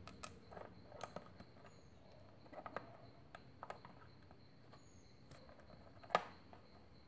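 Small plastic LEGO bricks being handled and pressed together: scattered faint clicks and taps, with one sharper click about six seconds in as a slope piece is snapped onto the sofa.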